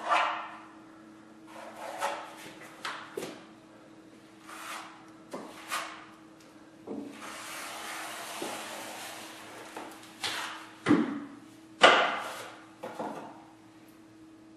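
Drywall taping knife scraping joint compound along an inside corner in a run of short strokes, with one longer steady drag about halfway through. Two sharp knocks stand out near the end, the loudest sounds here.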